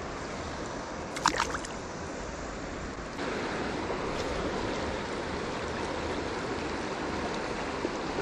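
Shallow river current running over rocks and riffles, a steady rush of water. About a second in there is a brief cluster of sharp clicks, and the rush steps up louder about three seconds in.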